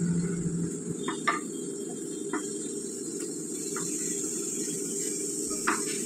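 Soft clicks and taps of fish pieces and fingers against a glass baking dish as boal fish is rubbed with spice paste by hand, over a steady high hiss and low hum.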